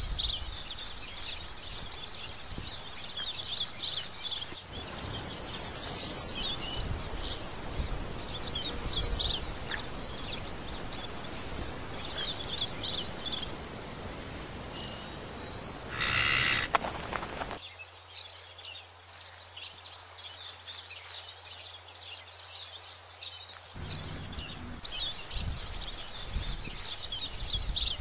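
A large knife scraping a fish on a wooden chopping block, in five loud scraping strokes a few seconds apart, with steady high chirping in the background.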